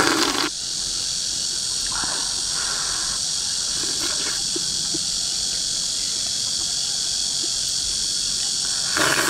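A steady, high-pitched chorus of insects runs throughout. Over it come a short slurp of soup from a ladle at the start, soft eating sounds about two seconds in, and another slurp near the end.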